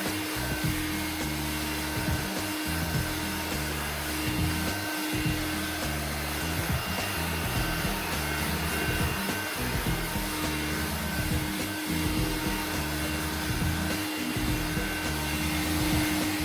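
Audew cordless handheld vacuum cleaner running steadily over carpet, a constant motor whir with a held whine, under background music.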